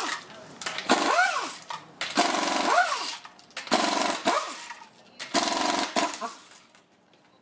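Pneumatic impact wrench hammering on wheel lug nuts in four bursts of about a second each, the air motor's pitch rising and falling within each burst as a nut breaks loose and spins off.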